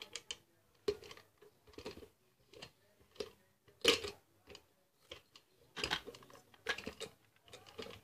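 Ceiling fan motor being knocked to split its casing apart: irregular knocks and clatter about once a second, the loudest about four seconds in, as the two halves of the casing loosen.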